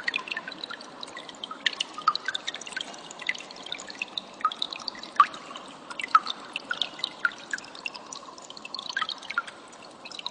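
Cililin bird calling: rapid, irregular sharp chirps and ticks, many per second, over a steady hiss.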